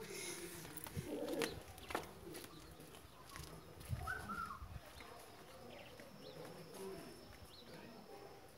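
Quiet yard ambience with faint bird calls, and a few soft footsteps of sandals on dirt in the first couple of seconds.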